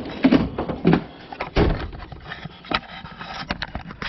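Handling clatter of hand tools: a run of irregular knocks and clunks, five or so sharper ones among them, as a pair of pliers is picked up and moved among other tools.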